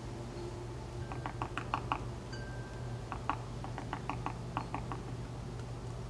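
Downy woodpecker pecking at the wooden rim of a birdhouse entrance hole, chipping to enlarge the opening: quick, irregular taps in two bouts, about half a dozen about a second in and a longer run of about ten from about three seconds in.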